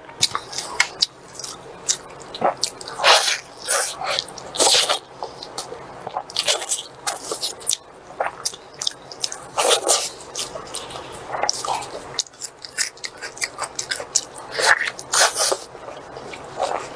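Close-miked eating sounds: a person chewing and biting food, with irregular wet smacking mouth noises coming in clusters.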